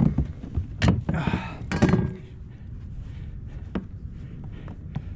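Knocks and thuds from a plastic fish-measuring board being handled against a kayak, three strong ones with rustling in the first two seconds, then only a few light clicks.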